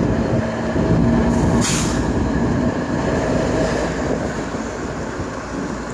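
A single CSX diesel locomotive running alone, with no cars, passes close by with a loud, steady engine rumble and wheel-on-rail noise. A brief hiss comes about two seconds in.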